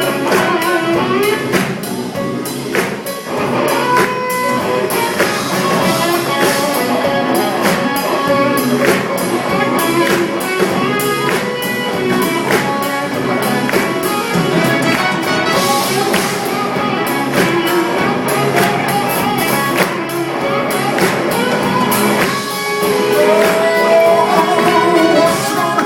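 Live band playing an instrumental passage, with regular percussion strokes.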